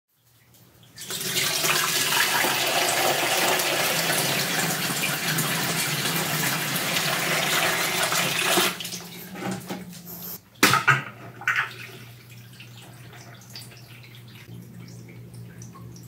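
Water from a garden hose pouring and splashing into a glass tank of substrate, a steady rush that cuts off about nine seconds in. It is followed by a few short knocks, then quieter trickling and dripping over a low steady hum.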